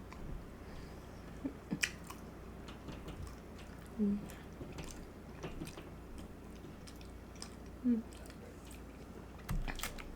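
Close-up chewing and biting into birria tacos, with irregular soft crunches and wet mouth clicks.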